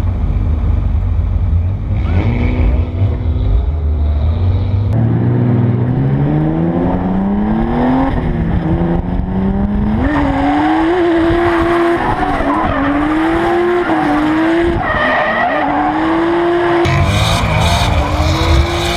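Drift car engine heard onboard: a low idling rumble, then revving hard from about five seconds in with the pitch climbing, then held at high revs and swinging up and down as the car slides, with tyres squealing. Near the end it changes abruptly to a low, rough rumble.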